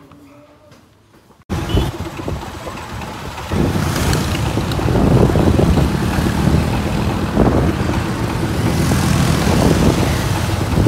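After a quiet first second and a half, road traffic noise starts suddenly: motorcycle and car engines running close by in a busy street, getting louder about two seconds later.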